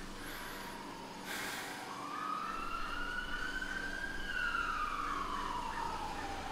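Emergency vehicle siren wailing: one slow rise and fall in pitch, with the next rise starting near the end. A short burst of hiss sounds about a second and a half in.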